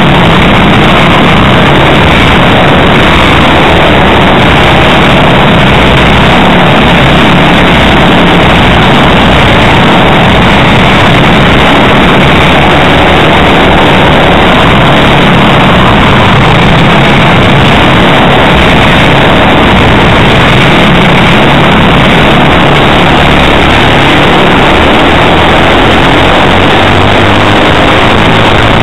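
Several four-stroke racing kart engines running hard together in a close pack, heard from a camera mounted on a kart. The sound is loud and steady, and the engine pitch wavers as the karts work through the corners.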